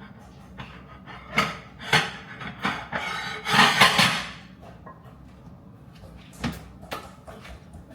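Kitchen handling noises: a series of knocks and bumps like cupboard doors, drawers and items being set down, with a louder noisy stretch of about a second midway.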